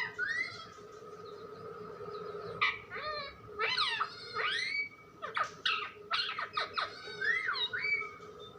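Pet parrot calling and chattering in a string of short chirps and swooping whistles. The calls are sparse at first, then come almost nonstop from about a third of the way in, over a faint steady hum.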